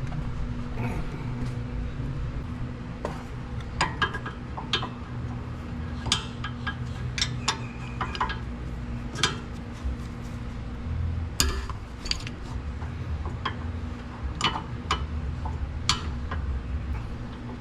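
Irregular metallic clinks and clicks of hand tools, a socket wrench and sockets, against steel brake hardware while the caliper bracket bolts are worked loose, over a low steady hum.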